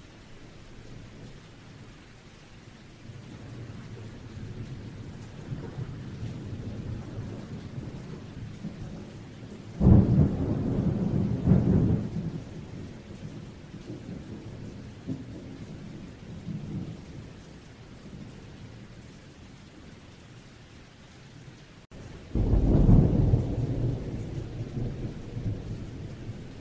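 Thunder rumbling twice, each roll starting suddenly and fading over two to three seconds, over a steady hiss of rain.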